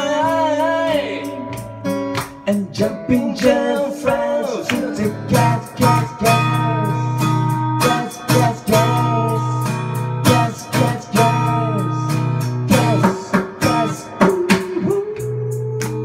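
Acoustic guitar strummed in a steady rhythm, with a voice singing a melody over it that bends and wavers in pitch at first and holds a long note near the end.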